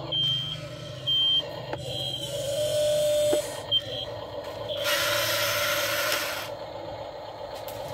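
RC toy excavator's small electric motors whining as the arm and bucket move, with four short high electronic beeps in the first four seconds. About five seconds in, a hissing scrape lasts about a second and a half as the bucket digs through loose dirt.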